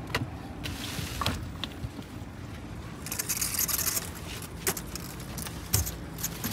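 Shrink-wrapped packs of plastic water bottles being handled and set down in a car boot. Scattered knocks and clunks, with a spell of crinkling plastic about three seconds in, over a low steady background rumble.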